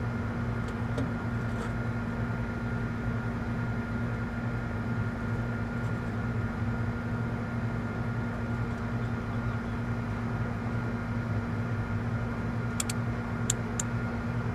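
Steady machinery hum with a low drone and a faint high tone, like running air-conditioning equipment, with three small sharp clicks near the end.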